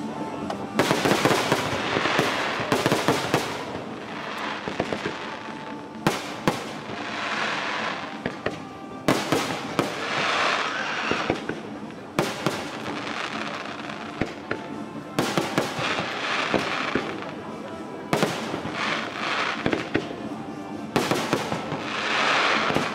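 Aerial fireworks bursting again and again: sharp bangs every few seconds, each followed by a crackling, sizzling shower.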